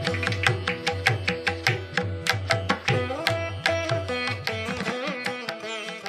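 Instrumental background music in an Indian classical style: quick plucked-string notes over a steady low drum beat, growing quieter near the end.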